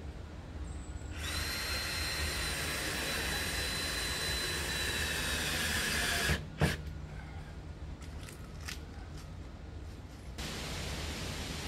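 Cordless drill driving a screw into a pine side board of a pickup bed. It runs with a steady whine for about five seconds, then stops, and a sharp knock follows. Near the end a steady hiss starts.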